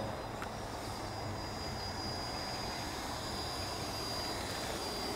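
Electric ducted fan of an Arrows Hobby BAE Hawk RC model jet in flight, a steady high whine.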